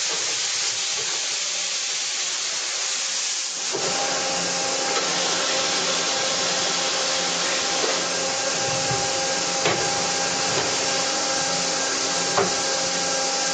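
Mitsubishi MH-50C horizontal machining center running with coolant spraying in the enclosure, a steady loud hiss. About four seconds in, a motor hum with several steady tones starts up and holds under the hiss, with a few light clicks.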